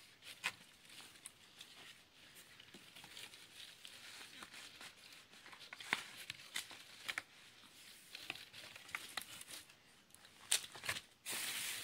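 Small rustles and clicks of a hand handling and turning the pages of a children's picture book. Near the end, a louder, dense crinkling starts as a hand rummages through crinkle-cut shredded paper filler in a cardboard box.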